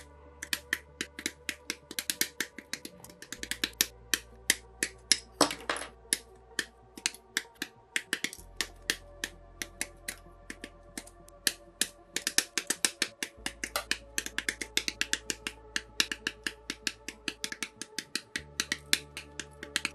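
Hobby nippers snipping plastic model-kit parts off their runners: rapid, crisp plastic clicks and snips, several a second, over low background music.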